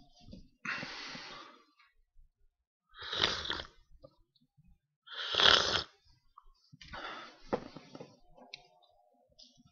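A person breathing heavily close to the microphone: four long breaths, the second and third loudest.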